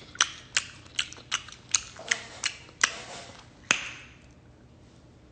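Open-mouthed chewing: a run of sharp, wet lip smacks about three a second, ending with one louder smack a little before the four-second mark.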